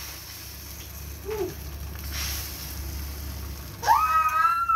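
Faint sizzling as egg and onion batter is ladled into a hot oiled frying pan and spread out. About four seconds in, a child's high, drawn-out call rises and holds, louder than the cooking.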